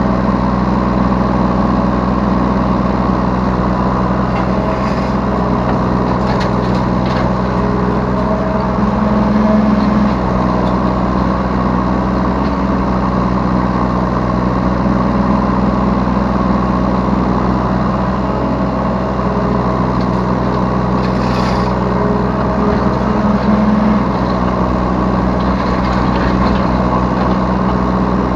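Yanmar B3 Sigma 3-ton mini excavator's diesel engine running steadily, heard from the operator's seat, its note rising briefly twice. A few short, sharper noises of the machine working break in at about five to seven seconds, at about twenty-one seconds and near the end.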